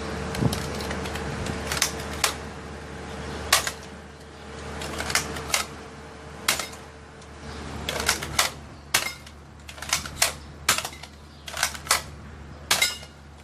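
Plastic mechanism of a Nerf N-Strike Elite Strongarm blaster clicking: sharp clicks, some in quick pairs, coming about once a second over a low steady hum.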